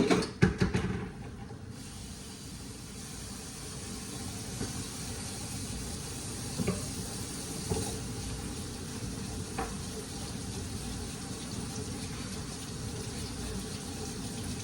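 Meat sizzling as it browns in a skillet: a steady hiss, with a few faint clicks and taps.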